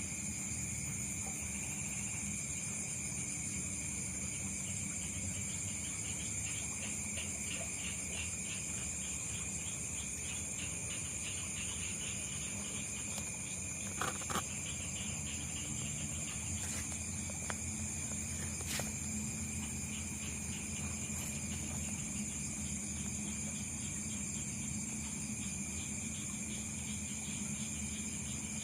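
Chorus of insects: several steady high-pitched shrills and a fast pulsing trill going on without a break. A few short clicks or knocks sound about halfway through.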